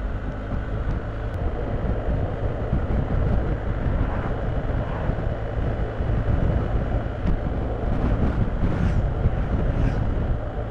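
Steady wind rushing over the microphone of a BMW R1250GS motorcycle riding at road speed, with engine and road noise low underneath.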